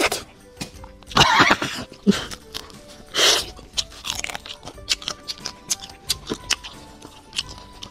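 Eating boiled crayfish: two loud slurps, about a second in and again at three seconds, as juice is sucked from the shells, with crackling and clicking as the shells are cracked and peeled and the meat chewed. Quiet background music plays underneath.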